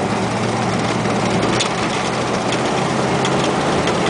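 Cadillac 472 cubic-inch big-block V8 running at a steady cruise, heard from inside the cabin with road noise. A few sharp clicks come through during the drive.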